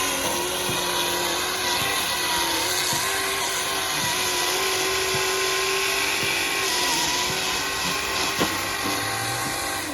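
Band saw running and cutting wood: a steady machine whine with noise from the cut, the pitch dipping slightly now and then. A single sharp tap near the end.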